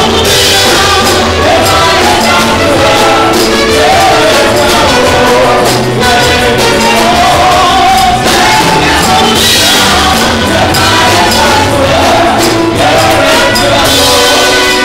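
Congregation singing a gospel worship song with instrumental backing and steady percussion, loud.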